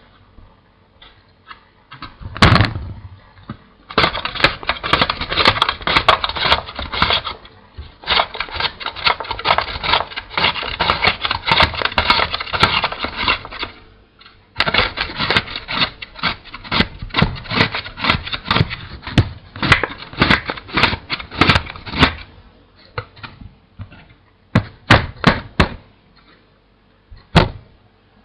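Cucumber being grated on the small holes of a large grater: fast, repeated rasping strokes in two long runs with a short pause between them, and a few separate knocks before and after.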